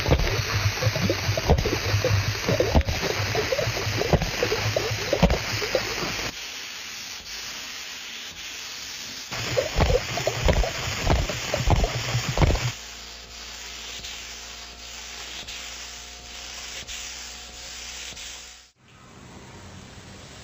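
Compressed-air paint spray gun spraying, a loud hiss in two long passes: the first about six seconds, the second about three seconds starting near the middle. A quieter steady background noise is left between and after them.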